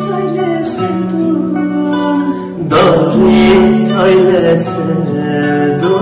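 A woman and a man singing a Turkish Black Sea folk song in duet to an acoustic guitar, with a louder strummed chord about three seconds in.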